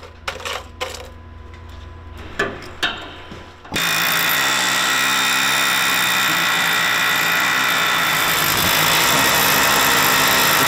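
A few sharp metal clinks, then about four seconds in a power tool starts and runs steadily at the seized bridge pivot pin, a little louder near the end.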